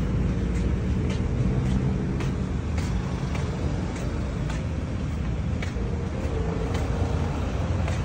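Street traffic: a steady low rumble of motor-vehicle engines on the road alongside. Faint footsteps on the pavement, about two a second, come through over it.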